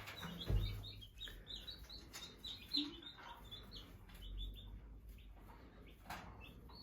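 Newly hatched chicks peeping: many short, high, falling peeps in quick succession. A soft thump comes about half a second in.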